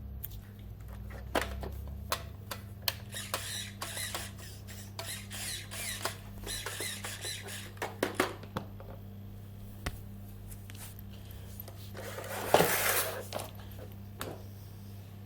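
Scattered clicks and short rasping sounds from handling a nitro RC car, with no engine running, and one louder rasping burst near the end.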